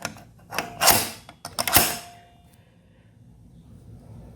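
Metal sliding lock on a garage door being worked: a few clicks, then two short metallic scraping slides of the bolt, about a second apart.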